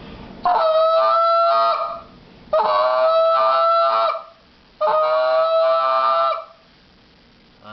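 Goose call blown in three long, steady-pitched rattling 'train' notes, made with the hands clamped around the call and a spit note.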